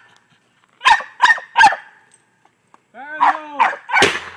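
A small dog barking: three quick barks about a second in, then two or three longer barks near the end that rise and fall in pitch.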